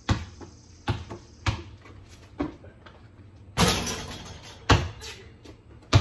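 Basketball bouncing on a concrete slab: about five sharp thumps at uneven intervals as it is dribbled, with a rougher, longer noise of about half a second a little past halfway.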